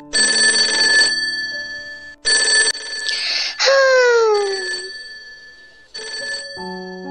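Alarm clock bell sound effect ringing in short bursts of about a second, three times: at the start, about two seconds in and about six seconds in. Between them, about three and a half seconds in, comes a drawn-out falling groan-like sound.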